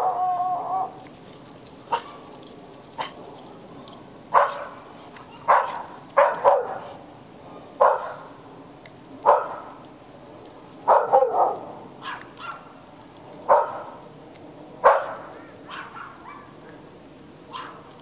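A dog barking over and over, single sharp barks every second or two.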